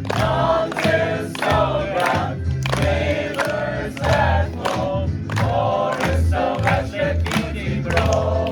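Music: a group of voices singing together over a steady beat of about two strokes a second.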